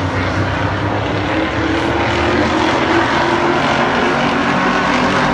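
Engines of a small pack of sportsman-class stock cars running around a short oval track, a loud steady drone.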